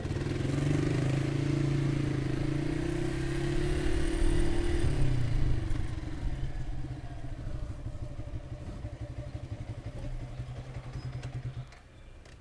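Motorcycle engine running under way, louder and climbing slightly in pitch over the first five seconds as it pulls, then easing off. The engine note falls away near the end.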